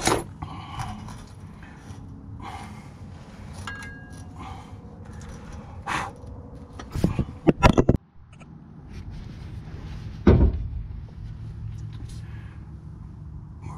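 Metal clutch parts being handled and fitted by hand: a clutch disc and pressure plate going onto the flywheel, with clinks and rattles, a quick cluster of knocks about seven seconds in and a heavy thump about ten seconds in, over a steady low hum.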